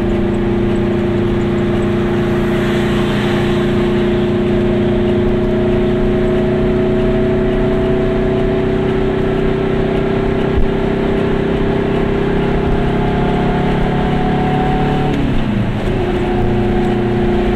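Goggomobil's small air-cooled two-stroke twin engine running at road speed, heard inside the cabin, its pitch climbing slowly as the car gathers speed. About fifteen seconds in the revs drop sharply, then hold steady at a lower pitch.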